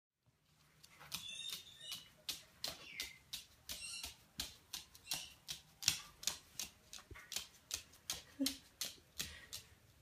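Paper towel rustling and crinkling as a caique tugs and shakes it in its beak, in a steady rhythm of about three crisp rustles a second.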